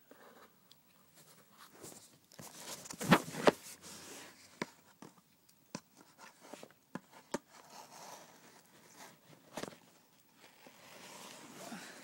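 Cardboard shipping package being worked open with a knife: scattered clicks, scraping and rustling, with two sharp knocks about three seconds in.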